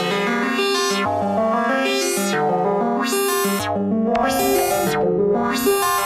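Electronic music from a DJ set, built on held synthesizer keyboard chords over a shifting bass line. From about two seconds in, a bright high layer opens and shuts roughly once a second.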